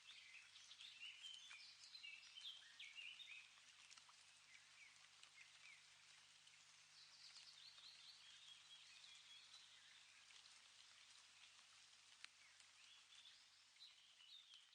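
Faint bird chirping in short clustered phrases over a low steady hiss.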